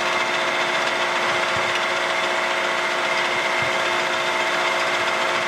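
Vertical milling machine running a two-flute high-speed steel end mill at about 450 rpm, taking a pretty good bite along the edge of a steel angle iron under power feed. A steady cutting noise with a few steady hum tones from the machine, even throughout.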